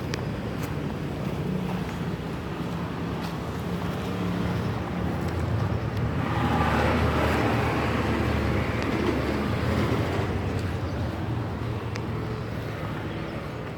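A motor vehicle's engine running with a steady low hum, swelling louder for a few seconds near the middle and then easing back, as of a vehicle passing close by.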